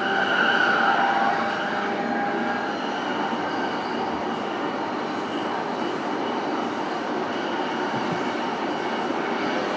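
Inside a JR East E233-series EMU motor car, the train running along the line with steady wheel-on-rail rolling noise. In the first two seconds or so several steady tones from the traction motors and inverter sound over it, then fade out.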